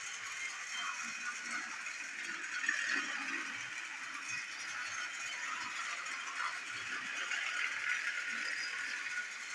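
Knockoff TrackMaster Douglas battery-powered toy engine and tender running around plastic track: a steady rattle of its small motor, gears and wheels on the rails.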